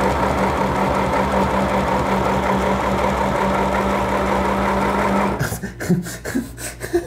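Small portable electric sewing machine running steadily as it stitches fabric, with a constant motor hum, then stopping suddenly about five seconds in. A few short knocks follow near the end.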